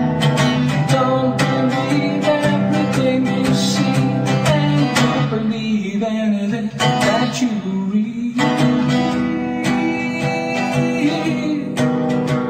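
Archtop acoustic guitar strummed in steady chords as an instrumental break. The strumming thins to ringing notes in the middle, then the full strumming returns.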